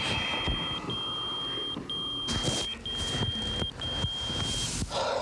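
Pager beeping: a steady high tone in beeps of just under a second with short gaps, five times, then stopping a little before the end.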